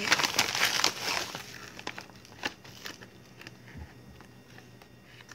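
Crinkling and rustling of a plastic packet of powdered drink mix for about two seconds, then quieter, with a few faint scrapes and taps from a plastic spoon scooping the powder.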